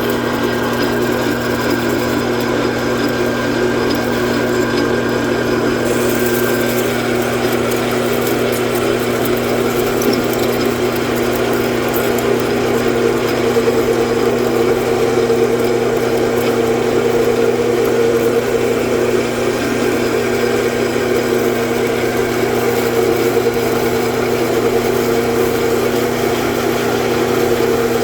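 Metal lathe running steadily under power feed, its high-speed steel tool taking a continuous cut, with a steady motor hum.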